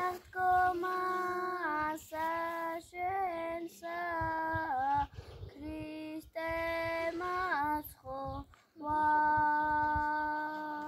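Children singing a church chant together, in short sung phrases with brief breaks between them, ending on one long held note near the end.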